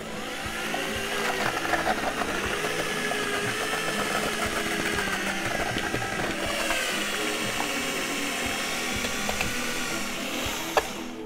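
Electric mixer spinning a drywall mud-mixing paddle through thick Hellcote 3000 refractory slurry in a plastic tub. The motor whine rises as it spins up at the start, wavers in pitch as the paddle works through the mix, and stops near the end.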